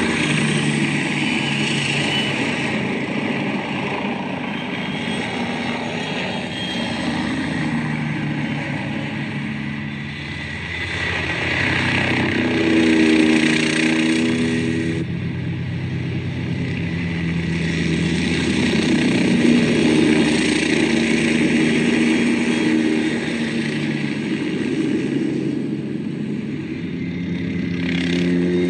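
MBB Bo 105 helicopter flying low and manoeuvring: the four-blade rotor and twin turbines make a steady mechanical noise whose engine tone shifts in pitch. It swells twice as the helicopter passes, about 13 and 20 seconds in.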